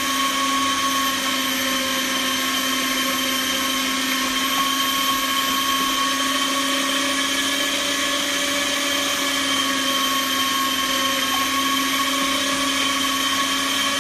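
Homgeek electric meat grinder's motor running at a steady pitch, a constant whine over a rushing noise.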